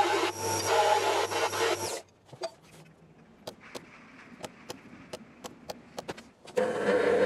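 Bench disc sander running as a workpiece is sanded against it, cutting off about two seconds in. Then comes a run of light hammer taps on a centre punch, marking the hole centres on an aluminium plate. Near the end a pillar drill starts running.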